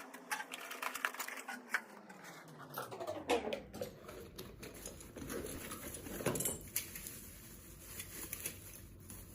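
Clicks, taps and small knocks of plastic and metal parts being handled and fitted, as a rod holder mount goes onto the tackle box's stainless steel base. One smooth falling sweep runs through the first three seconds or so.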